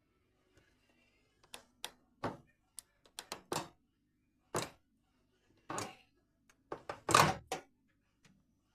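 Things being handled and set down: an irregular run of sharp knocks, clicks and thunks, the loudest a heavier thunk near the end.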